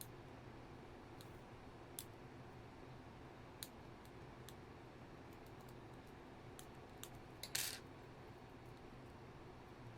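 Faint, sparse clicks of small tools on the plastic insides of a Bluetooth headset, with one short, sharper scraping snip about seven and a half seconds in, as a part blocking the new battery is cut or pried away.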